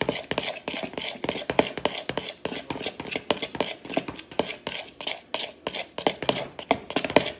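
Metal spoon stirring a slime mixture in a plastic mixing bowl, with rapid, irregular clicks and taps as the spoon knocks against the bowl.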